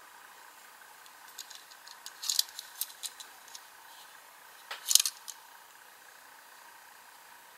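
Light clicks and rattles of a Tomica Limited Toyota 86 diecast metal model car being turned in the fingers, its opening doors being worked. A cluster of clicks comes about two seconds in, and the loudest about five seconds in.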